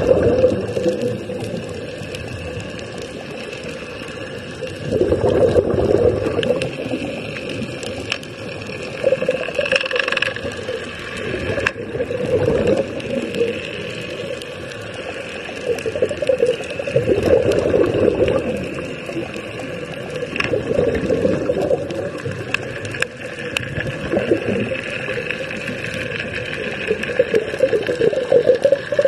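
Air bubbling out of diving helmets, heard underwater: irregular surging gurgles every few seconds, each lasting a second or two, over a faint steady high hum.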